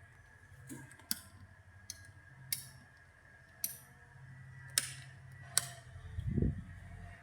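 Panasonic ceiling fan's motor humming steadily with a faint high whine, while its speed regulator clicks six times at uneven intervals; a low thud near the end.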